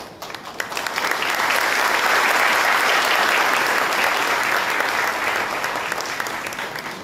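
A crowd applauding, many hands clapping together; it builds up over about the first second, holds steady, and dies away near the end.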